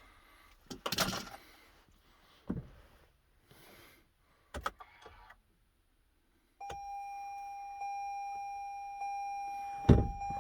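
A few small clicks and knocks, then about six and a half seconds in a Toyota Highlander Hybrid's dashboard warning tone starts and holds one steady pitch, growing louder in steps: the hybrid system has failed to start. A thump comes near the end.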